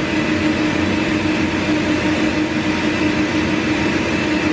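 Norvell Auto Revolution spray-tan booth running its spray session: a steady hiss of tanning spray from the nozzles over the steady hum of the booth's machinery.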